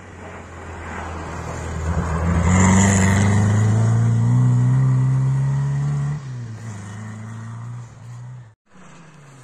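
Rally car engine at high revs as the car approaches and slides past, its note climbing in pitch and loudest over a few seconds. About six seconds in the note drops abruptly and fades as the car drives away, and the sound cuts out briefly near the end.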